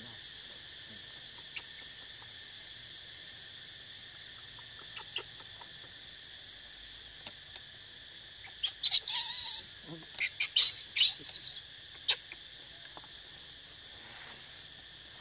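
Steady, high-pitched shrilling of forest insects. Partway through, a loud cluster of short, harsh, hissing bursts breaks in for about three seconds.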